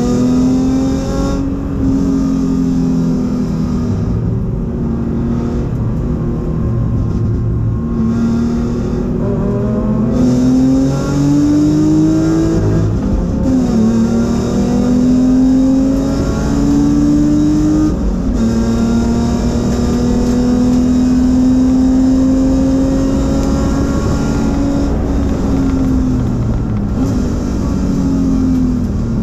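BMW 325i race car's straight-six engine heard from inside the stripped cabin under hard acceleration: the pitch climbs and drops sharply at each upshift, holds steady at high revs for several seconds, then falls off near the end as the driver lifts.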